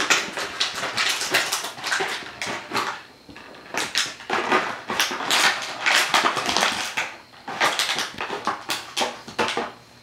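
Empty plastic water bottle crackling and crunching in bursts as a puppy bites and shoves it about, with a short pause about three seconds in; the crackling dies away near the end.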